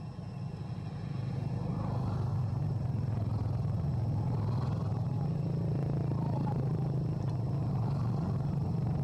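Steady low engine rumble, like a motor vehicle running nearby. It grows louder about a second in, then holds level.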